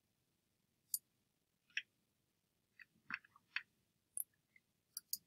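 Computer mouse clicks, faint and irregular, some in quick pairs, as a mouse is used to draw and erase in animation software.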